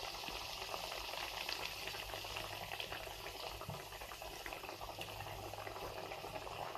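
Mathri, a maida-and-semolina dough disc, deep-frying in hot oil in a kadhai: steady bubbling and sizzling with small crackles.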